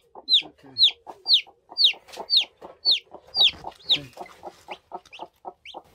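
A newly hatched chick peeping loudly, about two high, falling peeps a second, over a broody hen's quick, steady clucking; the hen is stressed at being parted from her chick. The peeps grow fainter about two-thirds of the way through.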